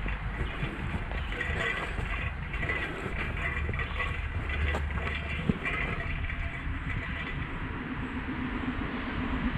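Steady rumble of highway traffic.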